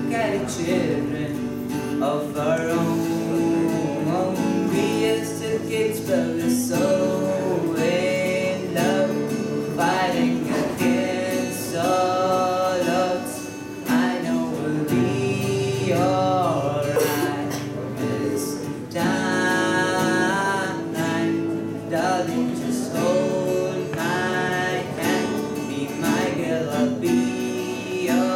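A boy sings a song into a microphone, accompanied by a strummed guitar.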